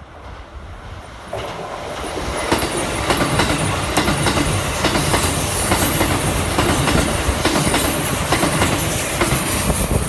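Keikyu 1000-series electric train running past at speed, its wheels clattering over rail joints with a high squeal; the sound swells about a second in and stays loud.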